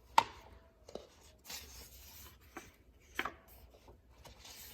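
A picture book being handled and its pages turned: soft paper swishes and rustling with a few sharp taps, the sharpest just after the start.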